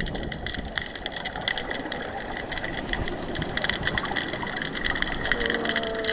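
Seawater sloshing and splashing against the pier below, a steady rushing wash full of fine crackling.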